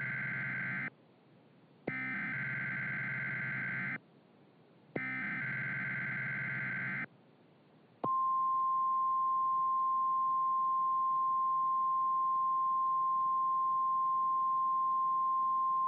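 NOAA Weather Radio EAS SAME header: harsh digital data-tone bursts, the end of one and then two more of about two seconds each, a second apart. About eight seconds in, the steady single-pitch 1050 Hz warning alert tone starts and holds. Together they announce a warning-level alert about to be broadcast.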